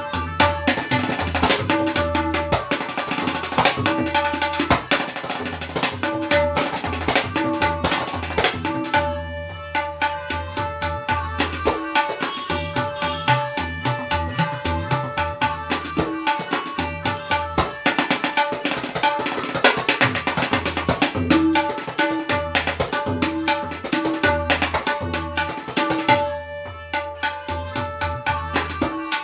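Tabla played solo in teentaal: rapid, dense strokes on the right-hand dayan and deep strokes on the left-hand bayan. The playing thins out briefly about nine seconds in and again near the end.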